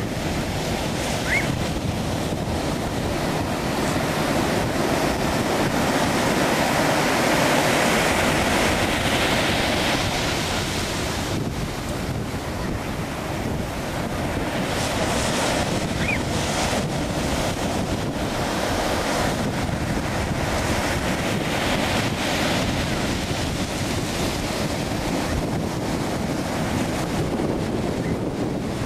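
Ocean surf breaking and washing around the wader's legs, a steady rushing that swells louder twice, with wind buffeting the microphone.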